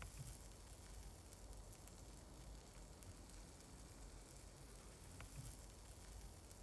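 Near silence: faint outdoor ambience with a low rumble and a couple of faint ticks.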